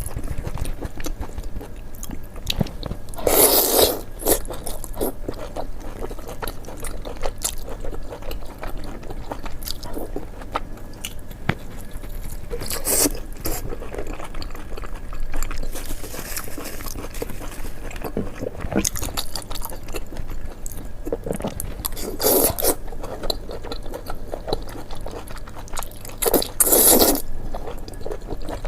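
Crisp food crunching and scraping, a run of small crackles with a few louder crunches spread through.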